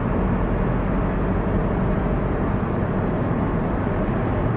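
Steady low rumble of a moving car's engine and tyres heard from inside the cabin.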